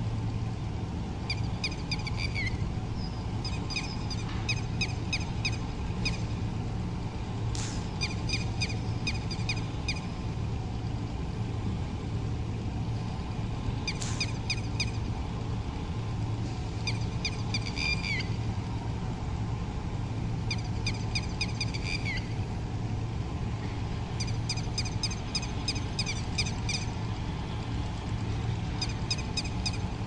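Red-wattled lapwing calling in repeated bouts of quick, sharp, ringing notes, some bouts ending in a short falling note, over a steady low hum.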